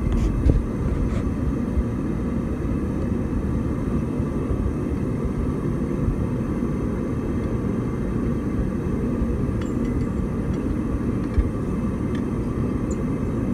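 Steady low rumble of forge-shop background noise, with a few faint metallic clinks as tongs and a red-hot railway spike are handled on the anvil.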